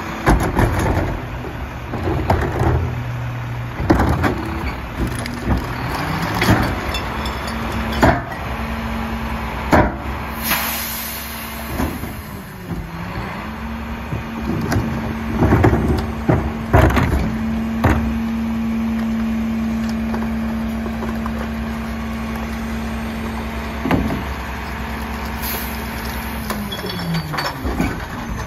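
Mack LEU garbage truck's diesel engine throttled up to a steady high idle while the McNeilus rear loader's hydraulic packer cycles, with repeated bangs and knocks of a cart and bins being tipped into the hopper. The engine speed dips briefly about midway and drops back to idle near the end.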